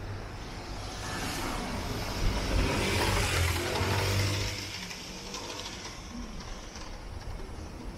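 A motor vehicle passes by on the street, its engine and tyre noise swelling over a few seconds and dying away about five seconds in, over steady street noise.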